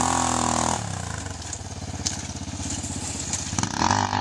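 A quad ATV's engine revving as the quad pulls away, easing off in the middle and revving up again near the end.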